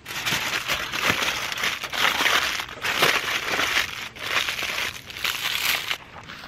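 Aluminium foil crinkling as it is folded by hand around a stack of tortillas; it stops near the end.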